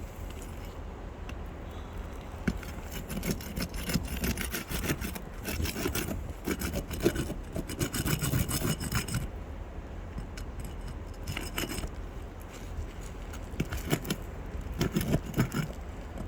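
Roof shingles being pried up and scraped loose, with irregular rough rasping strokes and scattered clicks. A steady low rumble runs underneath.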